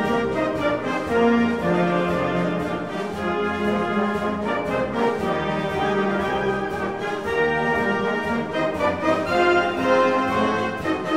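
Orchestral music with brass playing held notes.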